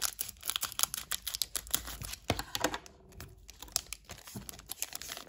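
Foil wrapper of a trading card pack crinkling and tearing as it is opened by hand: quick irregular crackles, thickest in the first two seconds and thinning out after.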